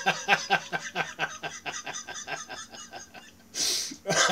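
A man's rapid, breathy laughter through tears, about five short pulses a second that fade away over some three seconds. Near the end comes a sharp intake of breath.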